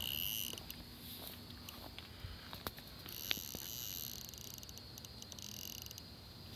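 Handheld RF bug detector's high-pitched electronic alarm tone, switching on and off in stretches of a second or more, with light clicks from handling.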